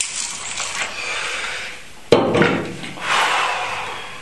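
Glass water bong bubbling as smoke is drawn through it, then a sharp knock about two seconds in and a long breath out.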